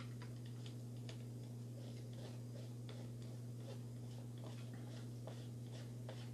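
Hand hex driver turning a screw into the plastic link mount of an RC crawler's chassis, with no nut behind it: faint, irregular small clicks and scrapes as the screw threads into the plastic. A steady low hum runs underneath.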